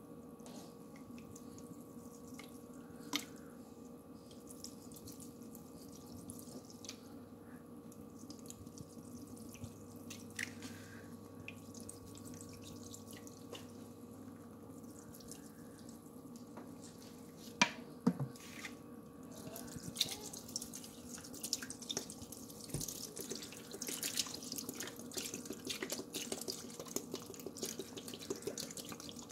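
Water dripping from soaked sponges in a sink over a faint steady hum: scattered drips at first, turning into a dense wet crackling about two-thirds of the way in.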